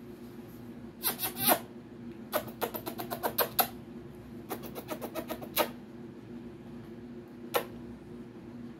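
A hand scratching and rubbing a dog's fur, in several short runs of quick scratchy strokes, over the steady hum of a box fan.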